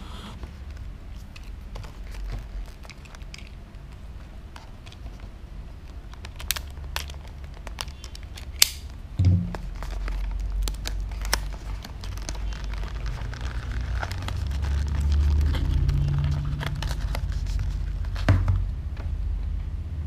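Cardboard retail box and its plastic seal being cut and opened by hand: crinkling with scattered sharp clicks and snaps, thickest in the middle, over low handling rumble.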